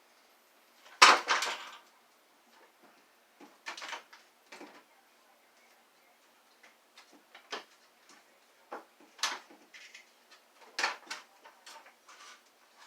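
Parts of a Kenmore vacuum wand being handled and pulled apart: scattered clicks and knocks, the loudest about a second in.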